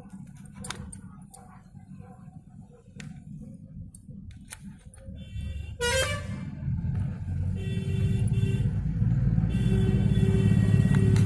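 A knife clicks against a plate a few times. About six seconds in, a nearby vehicle sounds its horn, a short pitched blare, and then an engine rumble builds steadily louder.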